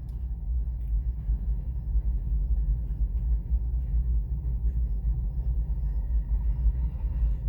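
Low, steady rumble of a freight train moving slowly.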